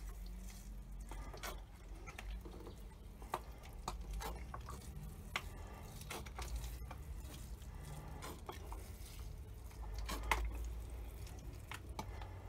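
Water sprinkling from a plastic bottle fitted with a watering-rose cap onto compost in small plant pots: a faint patter, with a scatter of light clicks.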